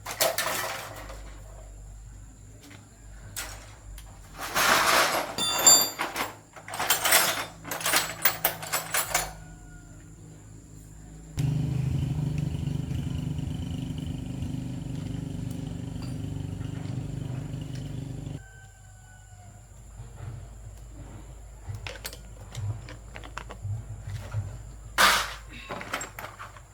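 Clatter and knocks of parts and tools being handled, then a small electric motor runs with a steady hum for about seven seconds, starting and stopping abruptly, followed by lighter knocks.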